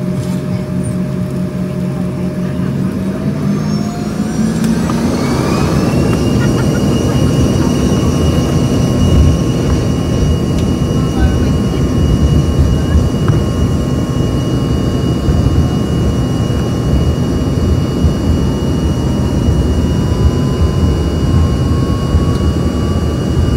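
Embraer ERJ-145's two rear-mounted Rolls-Royce AE 3007 turbofans spooling up to takeoff thrust, heard from inside the cabin: a whine rises in pitch for a few seconds, starting about three seconds in, then holds steady over a louder rumble as the jet rolls down the runway.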